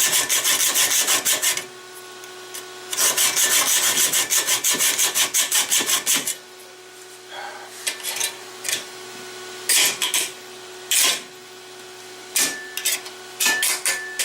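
Hacksaw cutting a metal frame-lock knife liner in quick, even back-and-forth strokes, in two runs with a short pause between; partway through the sawing stops and a few scattered clicks and knocks follow.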